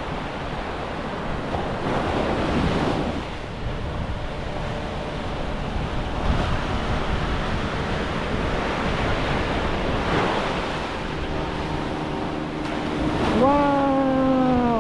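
Ocean surf washing ashore in slow swells, with wind buffeting the microphone. Near the end a loud pitched tone cuts in and slides down in pitch.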